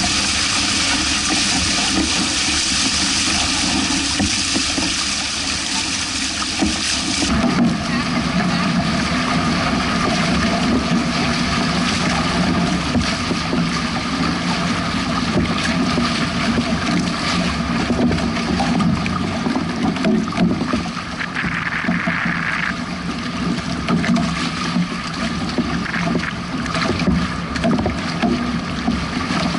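Wind buffeting the microphone over the rush and slap of choppy lake water, first as the Hobie 16 catamaran's hulls cut through the waves under sail. About seven seconds in the sound changes abruptly to a lower, rougher wash of wind and waves.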